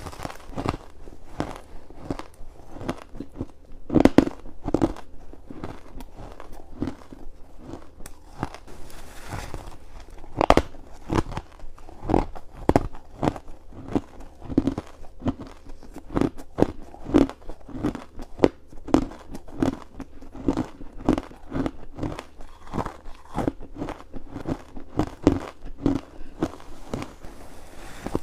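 Crunchy ice being bitten and chewed close to the microphone: a steady run of sharp cracks and crunches, one or two a second, with a finer crackle between them.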